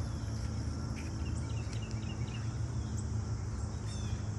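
Outdoor ambience: a steady high insect drone with several short bird chirps, over a steady low rumble.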